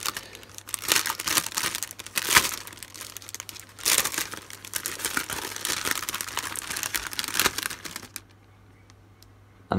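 Clear polypropylene plastic bag crinkling and crackling as it is handled and the paper leaflets inside are slid out. It stops about a second and a half before the end.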